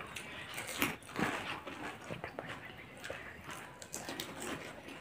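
Two people biting and chewing panipuri, the crisp hollow puri shells crunching in an irregular run of short crunches.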